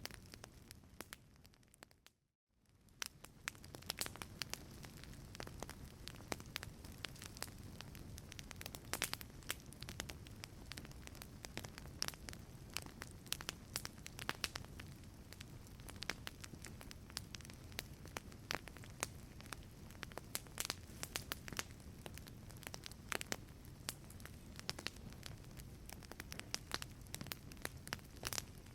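Wood fire crackling in a fireplace: a steady low rush of flame with frequent sharp pops and snaps. About two seconds in it fades briefly to silence and then fades back up.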